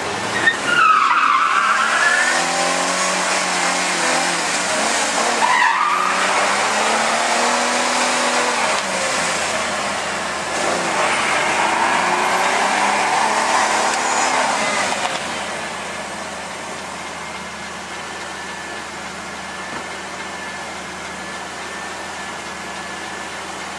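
Vehicle engine revving hard in a burnout while its spinning tires squeal, the engine pitch rising and falling again and again. After about fifteen seconds it drops to a quieter, steady running.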